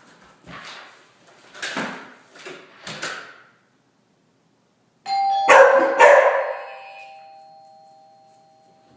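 A doorbell chime sounds about five seconds in and rings out slowly, and a big dog barks loudly twice over it. A few shorter sounds come before it.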